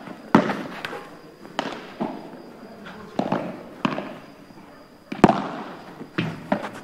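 Padel ball being hit back and forth in a rally: about eight sharp knocks of ball on racket and court at uneven intervals, each with a short echo, the loudest about five seconds in.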